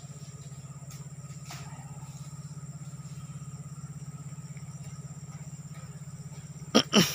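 A steady, rapidly pulsing low hum throughout, with faint steady high tones above it. Near the end a short, loud burst of voice breaks in.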